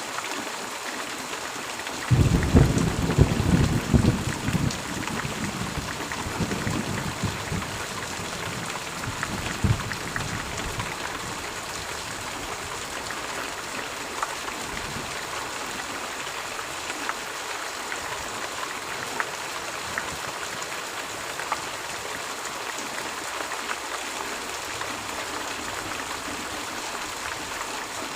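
Steady rain falling, with a clap of thunder about two seconds in that rumbles and fades away over several seconds.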